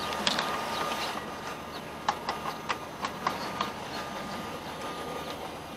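Hand tools clicking and knocking against the engine parts of a riding mower as bolts are worked loose, a string of short sharp clicks, most between about two and four seconds in, over a steady background hum.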